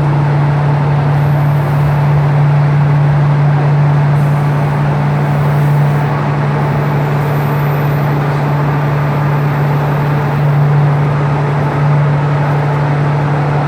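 Diesel railcar running, heard from inside the car: a steady engine hum under even rolling noise.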